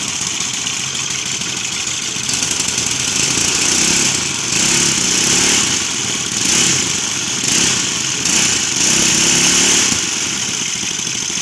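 Upcycled lawn mower engine on a homemade go-kart, running with its direct-driven wheel lifted and spinning freely. It idles, then from about two seconds in is revved up and let back down several times with the throttle, and settles back near the end.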